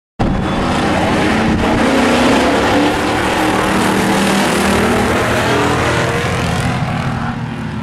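Several hobby stock race cars' engines running hard as the pack races around the track, loud and continuous; the sound cuts in suddenly just after the start and eases slightly near the end.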